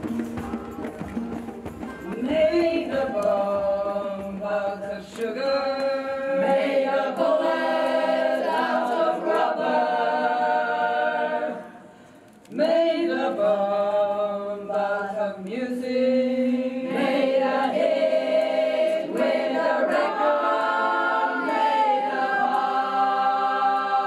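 Several voices singing together unaccompanied in a slow, chant-like song, holding notes in harmony. It comes in two phrases, with a brief break about twelve seconds in.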